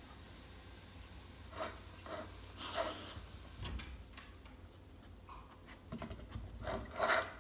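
Dog nosing tennis balls around in a metal muffin tin: scattered soft knocks and rattles of the balls in the tin's cups, coming closer together near the end.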